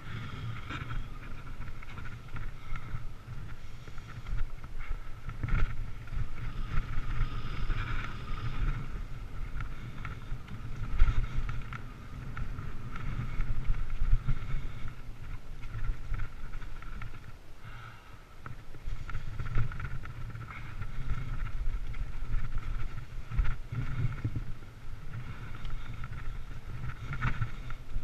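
Mountain bike riding over rough trail: wind rumbling on the microphone, the bike knocking and rattling over bumps, and a steady high whir underneath.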